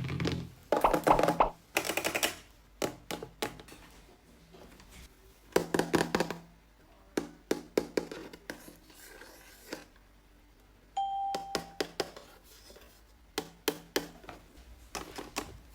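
Toy packaging being handled and opened: irregular taps, clicks and crinkly rustles, with a short steady electronic beep about eleven seconds in.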